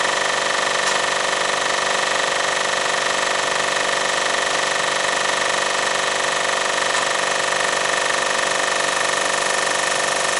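Cylinder head resurfacing machine running steadily with an even, high whine, its cutter being fed down slowly toward the aluminium VW 1.8T head to deck it flat.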